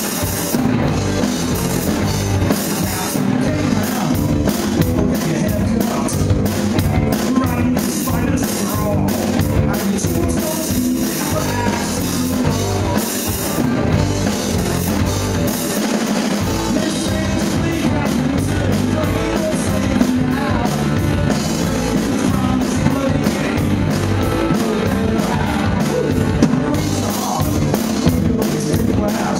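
Rock band playing live: electric guitars, bass and a drum kit with cymbals.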